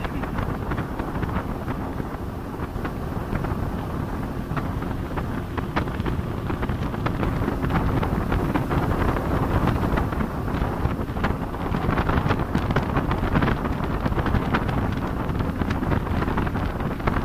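Wind buffeting the microphone aboard a speedboat under way, over the steady drone of its engine and water rushing and slapping against the hull. It grows a little louder about halfway through.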